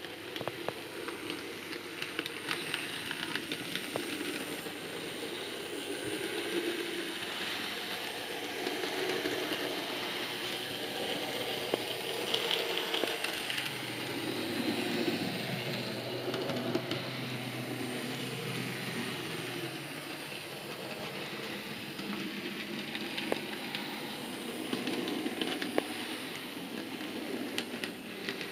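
Model diesel locomotive running along a model railway track: a steady whirring and rumbling from the motor and wheels, with scattered small clicks as it passes over rail joints and points.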